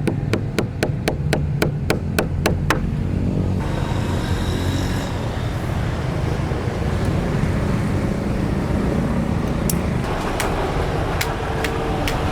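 A fast, regular run of sharp clicks, about five a second, for nearly three seconds, over a steady low rumble. After several seconds of rumble alone, sparser clicks return near the end.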